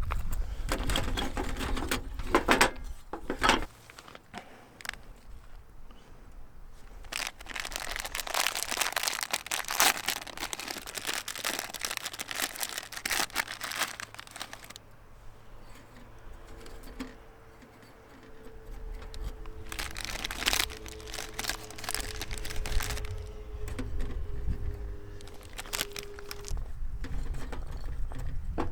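Intermittent crinkling and rustling, in bursts of a few seconds separated by quieter gaps, with a faint low rumble underneath.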